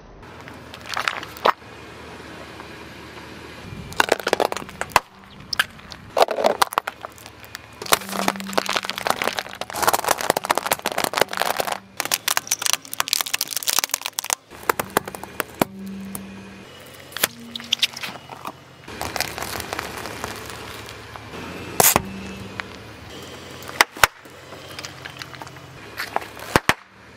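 A car tyre slowly crushing objects one after another: runs of crackling and crunching plastic as felt-tip markers splinter under it, and several single sharp cracks.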